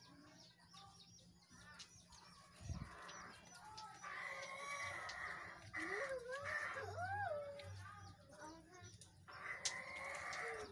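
Water poured from a plastic container onto potted plants, splashing in two spells, while a chicken clucks nearby with curving calls about six to seven seconds in.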